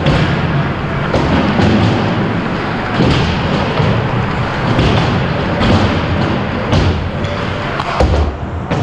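Ice hockey practice: pucks and sticks knocking and thudding against the boards and ice many times over, on a steady din of many players skating in an indoor rink.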